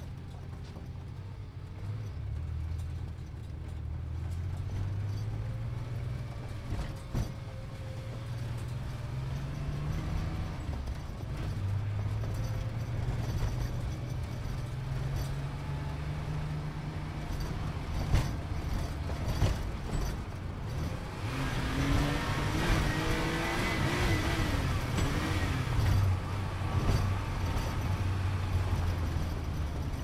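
Sports car engine accelerating, its pitch climbing, dropping back about ten seconds in as at a gear change, then climbing again. Past the middle, a wavering higher tone sits over the engine for several seconds.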